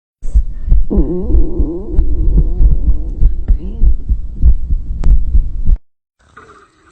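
A long, loud stomach growl: a low gurgling rumble whose pitch wavers up and down, lasting about five and a half seconds and cutting off suddenly near the end.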